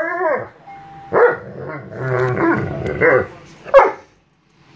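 A Doberman fussing: a whining howl that falls away at the start, then a string of short barks with a low grumbling growl among them. The dog is throwing a fit because the other dog has taken his blankets and ball.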